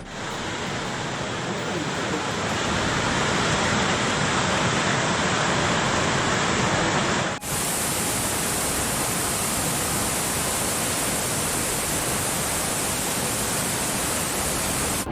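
Rushing floodwater: a loud, steady roar of water. About seven seconds in it breaks off abruptly and carries on with a brighter, hissier rush.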